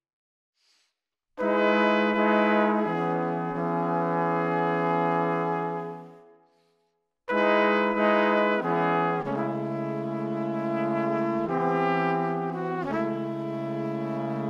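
Background music of slow, held chords. It starts after a second and a half of silence and breaks off briefly midway.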